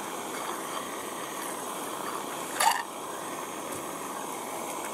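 Chopsticks and sausages clinking and scraping briefly on the wire mesh of a Uniflame mini roaster, once, about two and a half seconds in, over a steady hiss.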